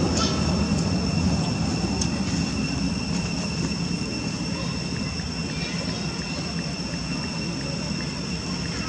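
Steady low outdoor rumble with a steady high-pitched insect drone over it.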